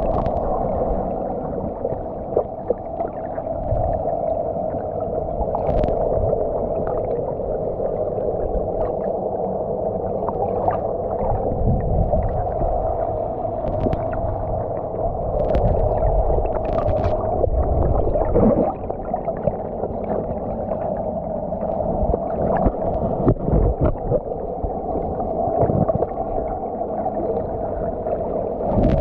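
Muffled underwater noise picked up by a submerged camera in a net full of fish: a steady drone with low water rumbling and scattered sharp clicks.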